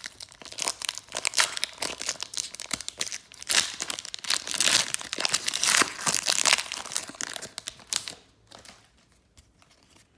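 Foil wrapper of a trading-card pack crinkling and tearing as it is opened by hand. The crackling dies away about eight seconds in.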